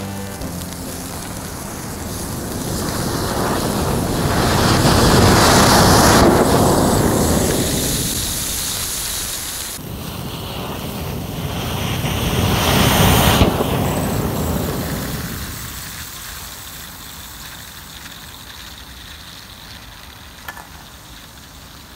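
Dozens of sparklers burning together as a jet, a loud rushing hiss that swells twice and then dies down to a faint hiss.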